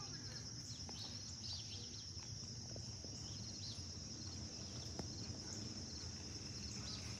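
Insects trilling steadily on one high pitch, with a few short bird chirps and a low steady rumble underneath.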